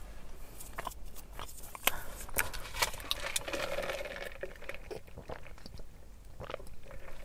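Close-up eating sounds: chewing food with scattered small clicks and mouth noises, and a short rustle around three to four seconds in.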